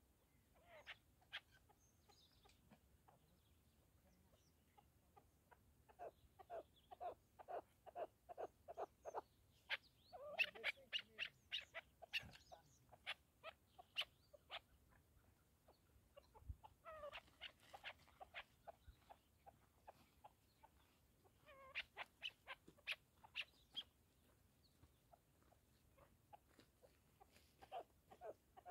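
Chukar partridge calling: bouts of short, rapidly repeated chuck notes, about three to four a second, each bout lasting a few seconds with pauses between.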